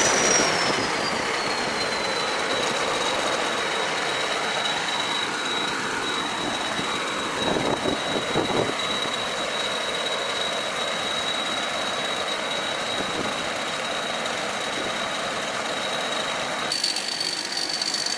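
Combine harvester machinery running steadily, with a high whine that slides down in pitch over the first two seconds and then holds. There is a short cluster of knocks about eight seconds in, and the whine steps up slightly near the end.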